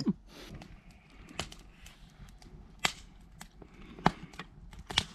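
Wood fire crackling in a metal fire bowl: irregular sharp pops over a faint hiss, with a few louder pops about a second apart.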